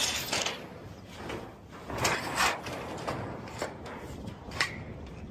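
Irregular scraping and knocking of roofing materials being handled and pulled loose during a tear-off. There are sharper knocks about two seconds in, again half a second later, and near the end.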